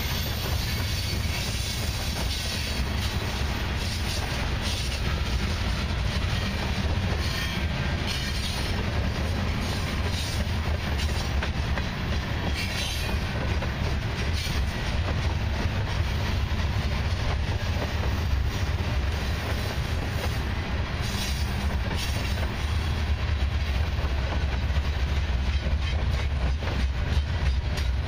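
Freight train cars, covered hoppers and boxcars, rolling past: a steady low rumble of wheels on rail, with scattered clacks.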